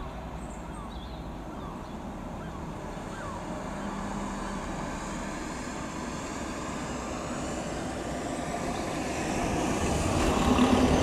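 Helicopter flying overhead, a steady rotor and engine noise that grows louder near the end.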